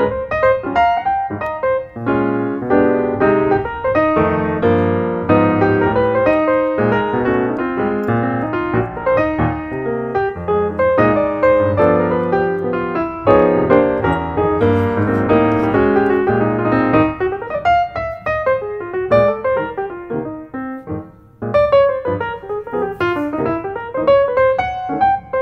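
Background piano music: a continuous run of piano notes and chords. It drops away briefly about 21 seconds in, then starts again with a higher melody.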